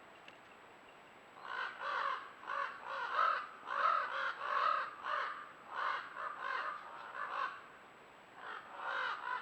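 Crows cawing in a rapid run of harsh caws, about two or three a second, beginning a second and a half in. The cawing breaks off for about a second near the end, then starts again.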